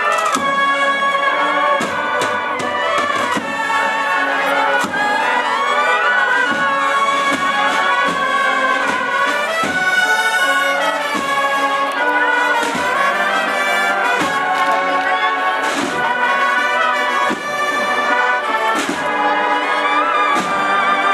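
A Spanish bugle-and-drum band (banda de cornetas y tambores) playing a processional march: massed cornets carry the melody over steady drum strokes.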